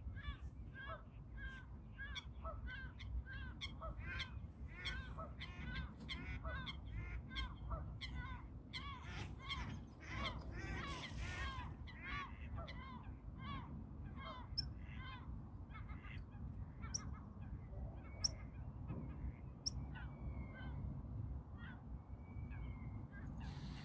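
Geese honking in a fast, continuous run of calls that thins out about halfway through. A few sharp ticks and short whistled notes come later, all over a steady low rumble.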